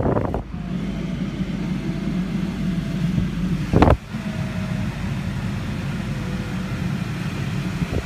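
A 2002 Ford Thunderbird's 3.9-litre V8 idling together with the climate-control fan blowing, heard from inside the cabin as a steady low hum. A single thump comes a little before the middle.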